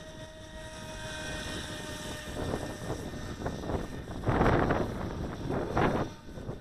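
Skytech H101 RC speed boat's brushed electric motor running at speed on the water, a steady whine that is clearest in the first couple of seconds. Wind gusts on the microphone, loudest about two-thirds of the way through, partly drown it out.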